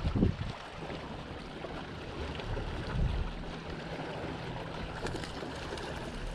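Wind rumbling on the microphone out on an open boat, with a steady low hum setting in about three seconds in.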